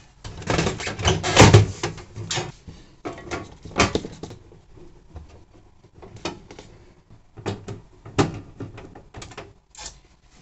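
Sheet-metal top cover of a VCR being slid and pressed down onto the chassis: a burst of metal rattling and clunks in the first couple of seconds, a sharp knock near four seconds, then scattered lighter clicks and knocks as it is settled into place.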